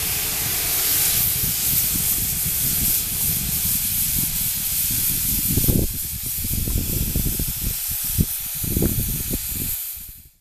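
Steam-driven locomotive air compressor running on an FRA orifice test, with a loud, steady hiss of escaping air and steam over a pulsing low rumble. The hiss eases after about six seconds and the sound fades out near the end.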